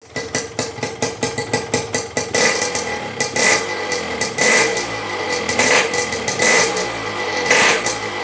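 Yamaha RX-King two-stroke single-cylinder motorcycle engine running through a 'belekan' racing exhaust, which has a shrill, loud note. Fast blips fill the first couple of seconds, then the throttle is revved in repeated surges about once a second.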